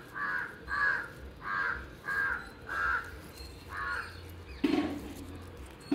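A crow cawing repeatedly, about six harsh caws a little over half a second apart, stopping about two-thirds of the way in. A single short sharp sound follows near the end.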